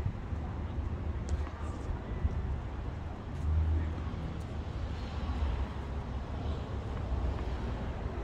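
Steady low outdoor rumble that swells briefly around the middle, with a few faint sharp taps in the first half and faint voices.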